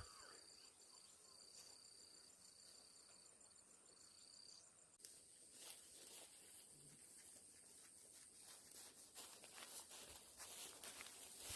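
Faint insect chirping in long, even pulses with short gaps, stopping about five seconds in. After that there is only faint rustling and scattered clicks.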